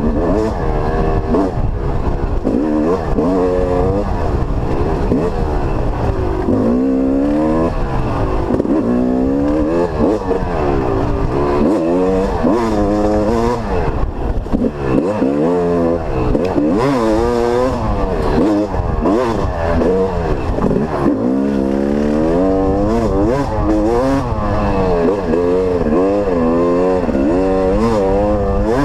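Dirt bike engine revving up and falling back again and again as the rider opens and closes the throttle and shifts gears along a twisting trail.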